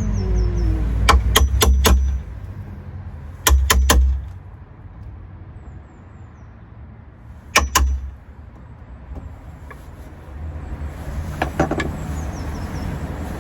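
Sharp clicks and knocks in small clusters of two or three, with pauses between, from tools and lock parts being handled while a sash lock is fitted into a door.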